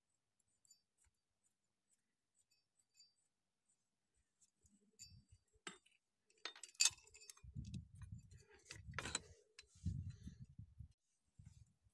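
Metal clinks and sharp clicks of a steel puller being unscrewed and lifted off the magneto rotor of a Yamaha Big Bear 350 engine, beginning about halfway through after a near-quiet start, with dull low thumps of the tool being handled in the second half.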